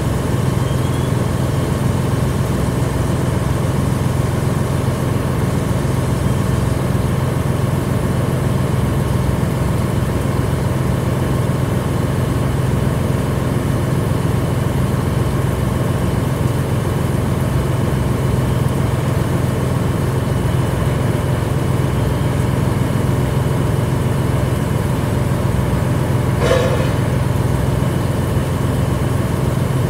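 An engine running steadily with a constant low drone, and one brief sharp noise near the end.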